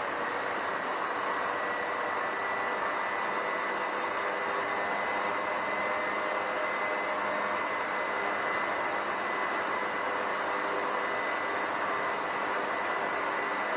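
Steady road and wind noise of a vehicle travelling through a road tunnel, an even rushing with a faint steady high tone running through it.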